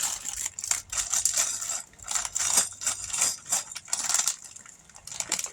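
Loose plastic Lego pieces clattering and clicking as hands rummage through them, in irregular runs of quick clicks.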